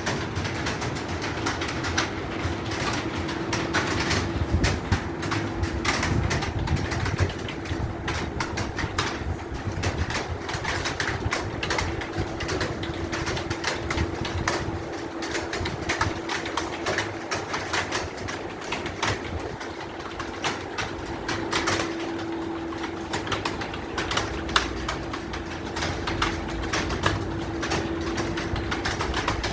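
Fast, continuous typing on a computer keyboard, with many irregular keystroke clicks every second over a steady low hum.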